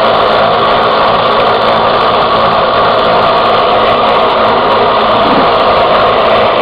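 Electric sanding tool running steadily against walrus ivory, a continuous grinding whir as the surface is sanded down.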